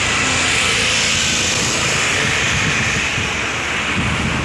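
Steady noise of a moving vehicle on the road, an even rushing sound with a low rumble underneath.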